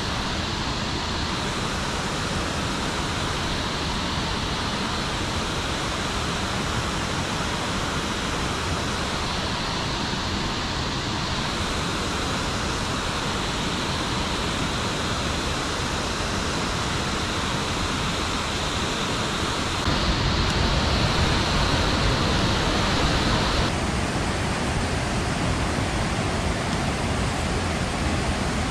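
Steady rushing of water from a dam's outflow, an even hiss. It grows louder and deeper for a few seconds about twenty seconds in.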